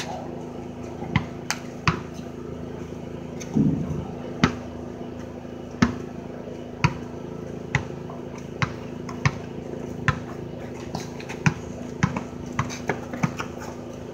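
A basketball bouncing on pavement as players dribble, in sharp irregular bounces roughly one a second, over a steady low hum.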